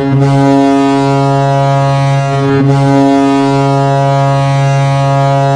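Hockey goal horn blowing: a deep, ship-style horn holding one loud, steady note, with a brief waver about two and a half seconds in.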